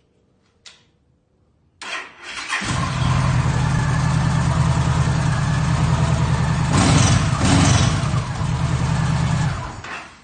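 2011 Yamaha Stryker's V-twin on its stock exhaust, cranked by the starter about two seconds in, catching and idling steadily. There are two quick throttle blips around seven seconds, and the engine is shut off near the end.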